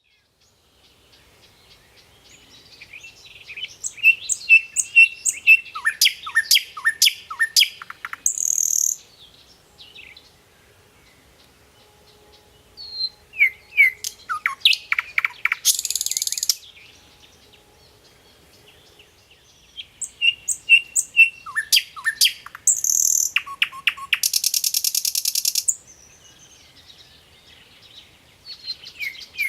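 A songbird singing in three bouts of rapid, sharply falling chirps, each bout ending in a harsh buzzing rasp, with short quiet pauses between them.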